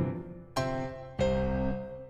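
Background piano music: chords struck about half a second and a second in, each ringing and fading away.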